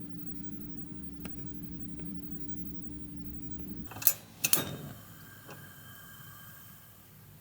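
A steady low hum that cuts off about four seconds in, followed by two or three sharp clicks or knocks.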